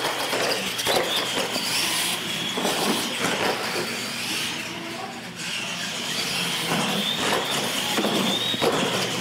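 Electric R/C monster trucks racing: a steady high motor and gear whine with tyre noise, broken by several thumps and clatters as the trucks hit and land off the ramps.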